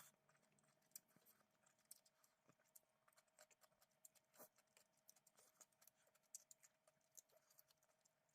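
Near silence with faint, irregular small clicks and taps over a faint steady hum.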